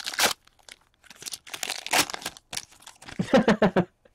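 Wrapper of a hockey card pack crinkling and tearing as it is ripped open by hand, in several uneven rustles, with the cards handled just after.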